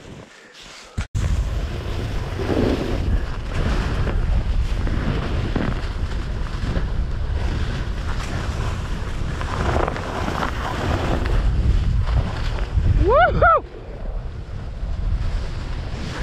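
Snowboard sliding fast over snow, with heavy wind buffeting the microphone. The rushing starts abruptly about a second in and swells and eases through the run. Near the end comes one short pitched sound that rises and falls.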